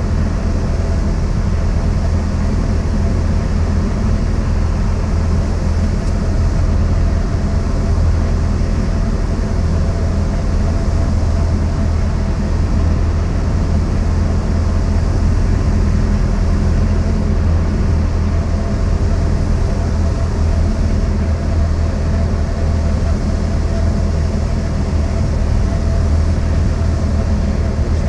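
Cessna 172's piston engine and propeller running steadily at a constant power setting.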